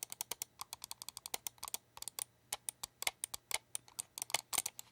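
Mouse buttons clicked rapidly and repeatedly, several clicks a second, mostly in press-and-release pairs: the Keychron M3 Mini's Huano micro switches, a softer, less clicky sound than Kailh GM 8.0 switches.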